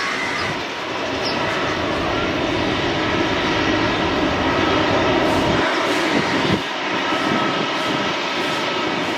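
Boeing 737-900ER's CFM56-7B jet engines running with a steady noise and a faint whine.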